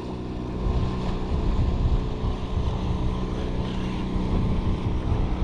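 Outboard motor of a small fishing boat running steadily as the boat heads back in, a constant hum, with wind buffeting the microphone.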